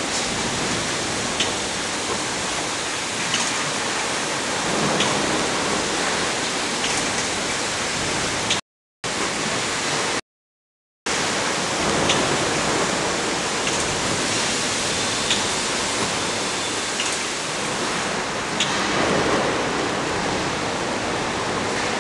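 Steady hiss of factory-floor noise from machinery, with a few faint clicks scattered through it; it cuts out twice briefly around the middle.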